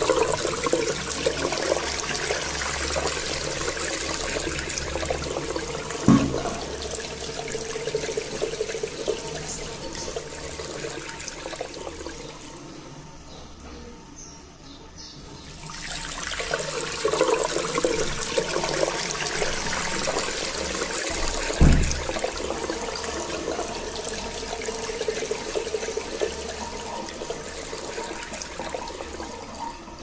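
Water from a garden hose running into a latex balloon, filling it: a steady rushing of water that fades for a few seconds midway and comes back. A brief thump is heard twice, about six seconds in and about 22 seconds in.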